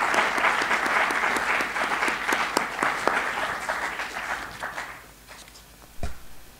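Audience applauding at the end of a lecture, a dense patter of clapping that fades away about five seconds in. A single low thump follows about a second later.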